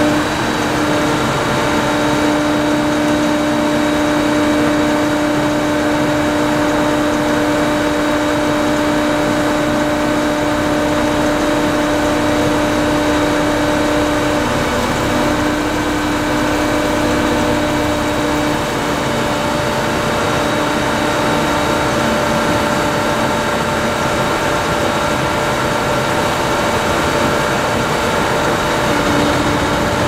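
Brettmeister K6 potato transfer trailer with air separation running, its conveyors and drive working: a steady mechanical din with a constant hum that shifts slightly in pitch about halfway through.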